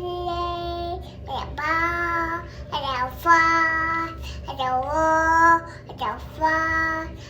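A toddler singing about five long held notes, one of them swooping down and back up into the note, over a steady low hum.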